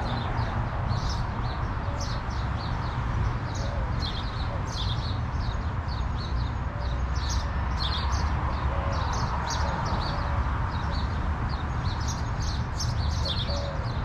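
Many small birds chirping, short high chirps crowding and overlapping one another, over a steady low rumble.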